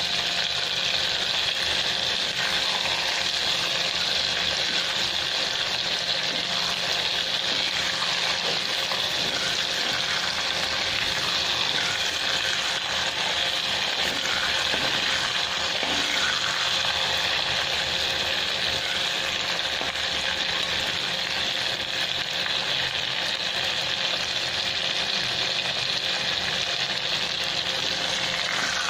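Chicken liver frying in hot oil: a steady sizzle of bubbling oil, with a spatula moving through the pieces now and then.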